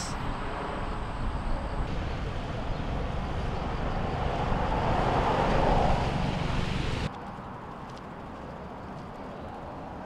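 Outdoor traffic noise: a vehicle passes, swelling and fading about five to six seconds in. The sound cuts abruptly to quieter, steady outdoor background about seven seconds in.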